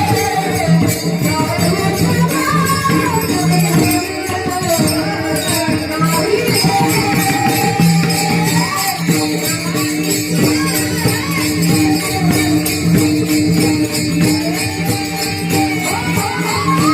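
Warkari bhajan music: a man singing a high, gliding melody over a steady drone, with small hand cymbals (taal) jingling in a fast, constant rhythm. The voice rises to a higher held note near the end.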